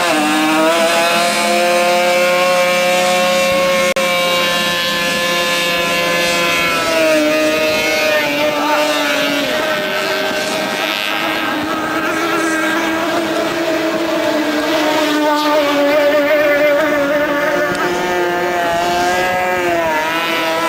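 Racing hydroplane's engine running at high revs, its pitch holding steady with a few dips and rises as the throttle changes.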